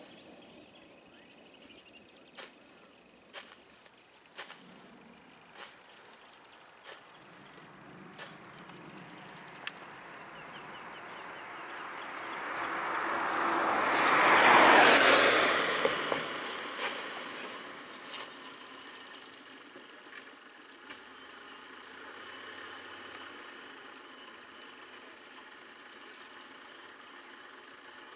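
Insects chirping steadily in quick high pulses, while a vehicle approaches, passes close about halfway through and fades away.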